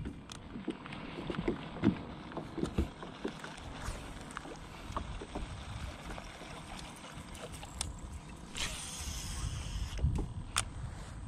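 Fishing from a small boat: low water and hull noise, with scattered light clicks and knocks of rod and reel throughout, a short hiss about nine seconds in, and one sharp click near the end.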